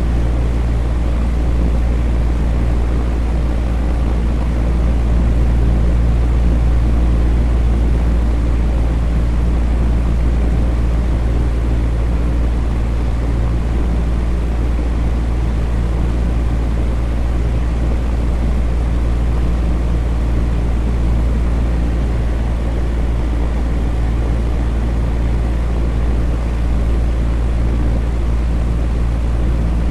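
Electric fan running steadily: a deep, even hum with a few steady low tones under a wash of rushing air noise.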